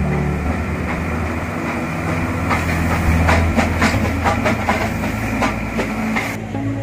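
Nilgiri Mountain Railway train hauled by a steam locomotive, moving slowly with a steady rumble. About two and a half seconds in comes a run of sharp metallic clicks, about three a second, which stops about half a second before the end.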